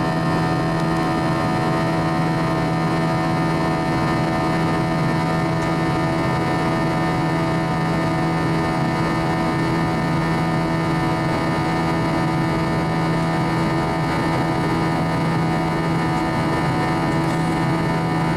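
Airbus A321's turbofan engines at climb power, heard inside the cabin: a steady drone with a buzz of many fixed tones from the engines.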